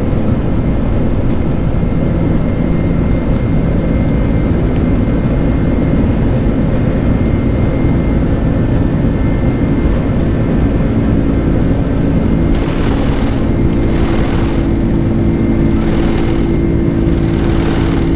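Jet airliner engines at takeoff power heard from inside the passenger cabin: a loud, steady rumble with a steady engine hum and a faint high whine. In the last few seconds, short swells of hiss come and go several times.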